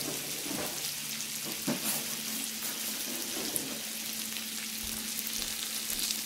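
Shrimp, scallops and sausages sizzling on a hot grill plate: a steady frying hiss with fine crackles.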